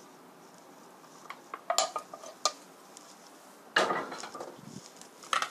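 Metal serving spoon clinking against a cooking pan a few times, then a louder clunk with a brief ring about four seconds in as the pan is lifted and set down.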